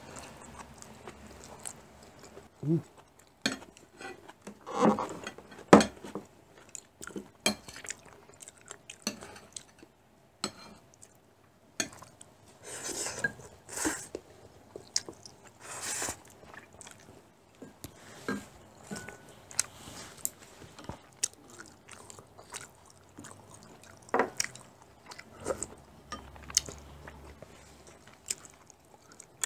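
Close-up eating sounds of japchae, glass noodles stir-fried with vegetables: chewing and biting, with many sharp clicks of chopsticks and spoons against porcelain bowls and plates, and a few short hissy slurps in the middle.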